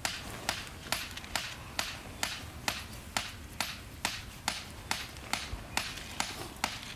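Steady footsteps, each step a sharp crunch, at an even walking pace of about two a second.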